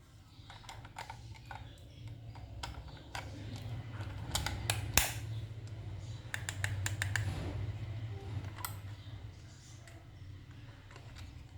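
Irregular light clicks and taps of hard plastic being handled, coming in small clusters with one sharper click about five seconds in, over a low hum.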